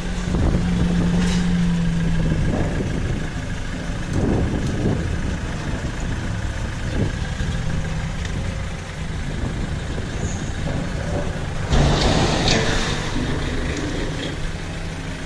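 Vehicle engine idling steadily, with a short burst of hissing noise about twelve seconds in.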